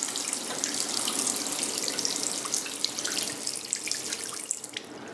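Water running from a washbasin tap into the basin, dying down near the end as the tap is turned off.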